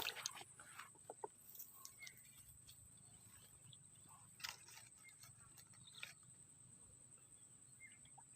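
Near silence: faint outdoor ambience with a steady high hiss and a few soft scattered clicks.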